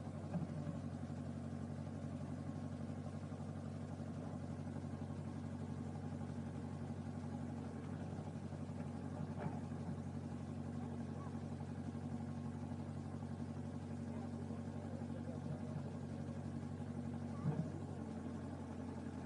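Fiat-Allis backhoe loader's diesel engine running steadily as the backhoe arm works, with a few brief knocks, the loudest near the end.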